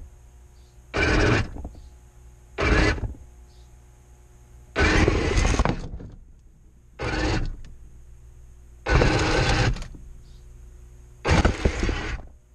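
Radio-controlled model tank's electric drive motors and gearboxes whirring in short stop-start bursts as it is driven in spurts, six bursts of about half a second to a second each.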